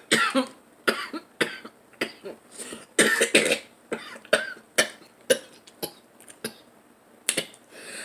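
Close-miked mukbang eating sounds: a string of wet mouth smacks and clicks from chewing and sucking seafood, broken by a few short breathy huffs and coughs from the heat of the spicy sauce.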